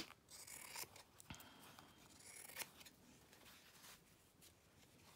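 Scissors cutting a strip of craft material in half: a sharp snip at the start, then a few faint snips and light rustles.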